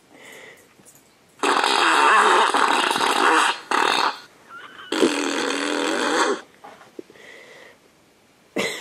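Whoopee cushion fart sound played from an iPad, twice: a loud blast of about two seconds, then a second of about a second and a half.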